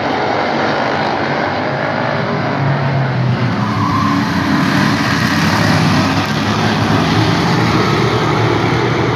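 A pack of hobby stock race cars running at racing speed on the oval, their engines blending into one continuous drone. It grows louder about three seconds in as the bunched field passes close by.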